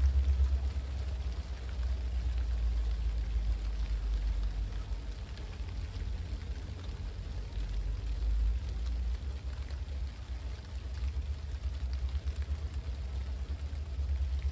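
Low, wavering rumble of diesel locomotives, GP60s, out of sight, under a steady hiss of falling rain.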